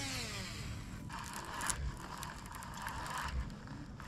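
Lew's baitcasting reel being cranked, its gears whirring for about a second and a half as line is wound in.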